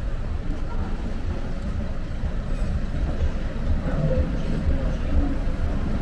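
City street ambience: road traffic passing with a steady low rumble, and faint voices of passers-by.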